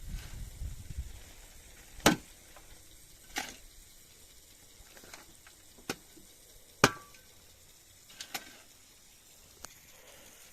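A series of sharp knocks, about seven and irregularly spaced, the loudest about two seconds in and again near seven seconds, after a low rumble that fades in the first second.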